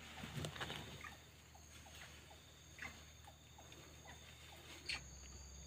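Faint forest ambience: soft rustles and ticks, with a faint short chirp repeating two or three times a second and one sharper click near the end.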